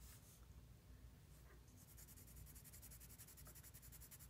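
Faint scratching of a colored pencil on paper, shading with short up-and-down strokes. From about halfway in, the strokes fall into a fast, even rhythm.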